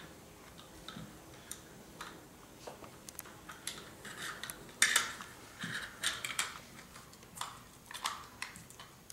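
Irregular clicks and light knocks of the parts of an electronic keypad door lock being handled and pressed together as its added WiFi module and wiring are fitted into the housing, with a sharper knock about five seconds in.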